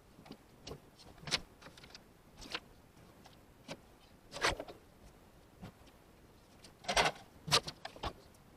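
Scattered knocks, clunks and rustles of things being handled and moved around in a pickup cab, loudest about four and a half seconds in and twice near seven seconds.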